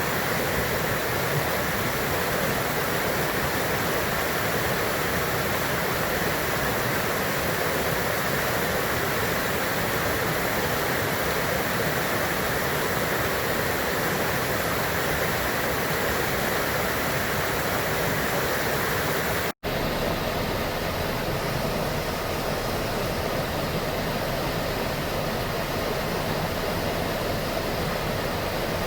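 Steady rush of falling water from a mountain stream and waterfalls. A brief cut about two-thirds of the way through, after which the rush carries on a little less bright.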